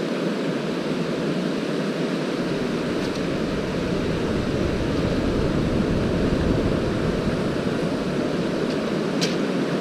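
Surf breaking on a shingle beach as a steady rush, with wind buffeting the microphone in a low rumble that grows stronger about two seconds in.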